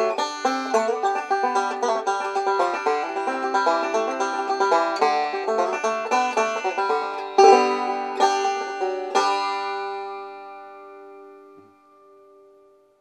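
Resonator banjo with a Yates-built pot modeled on a 1933 no-hole banjo, picked rapidly in a bluegrass style. About seven seconds in, it closes with three chords about a second apart, and the last chord rings on and slowly fades out.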